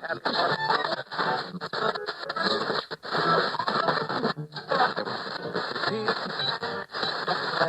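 Radio being tuned across the dial: snatches of music and voices cut in and out between stations, with short gaps as the dial moves on.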